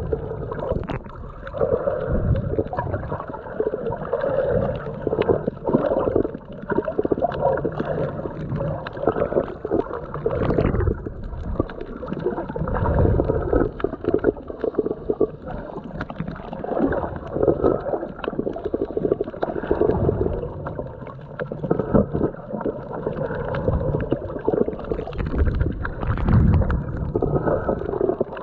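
Muffled water sloshing and gurgling, recorded underwater, swelling and fading unevenly with a few sharp knocks.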